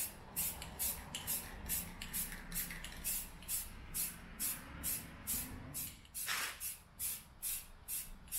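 Aerosol can of Rust-Oleum High Heat spray paint hissing in short bursts, about three a second, as paint is sprayed onto welded exhaust pipe joints; one burst about six seconds in is longer and fuller.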